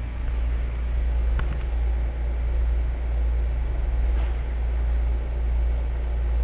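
A steady low mechanical hum, with a couple of faint clicks about a second and a half and about four seconds in.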